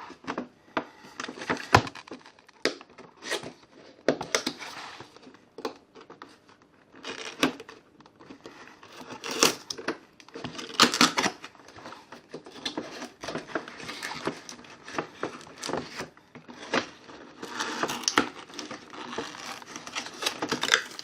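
A toy box's packaging being opened by hand: irregular tearing, crinkling and sharp clicks.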